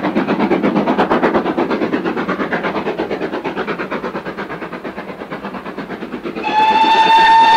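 GWR Modified Hall 4-6-0 No. 6989 'Wightwick Hall' working a train, its exhaust beating in a quick, even rhythm. About six seconds in, its whistle sounds one long, steady blast.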